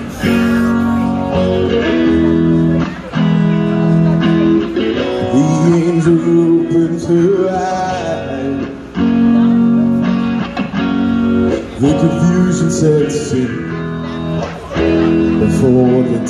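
Live amplified music: a man singing into a handheld microphone over guitar-led backing.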